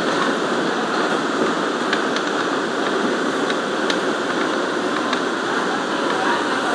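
R179 subway car running on elevated track, heard from inside the rear car: a steady rumble and hiss, with a few light clicks.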